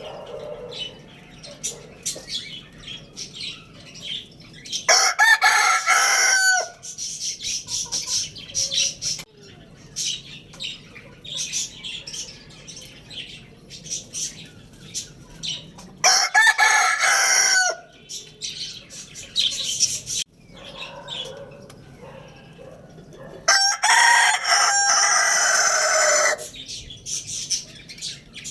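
Roosters crowing: three long crows, each about two to three seconds, about five, sixteen and twenty-four seconds in. Short chirps and clucks of other fowl fill the gaps between.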